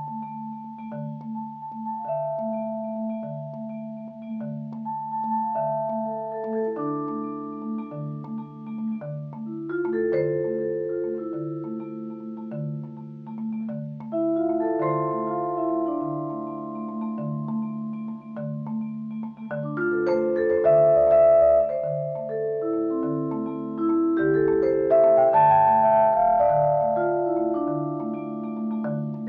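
Majestic vibraphone and marimba played at the same time by one percussionist with yarn mallets: a low pulsing figure under runs of long ringing notes that fall in steps. It grows louder and busier about two-thirds of the way through.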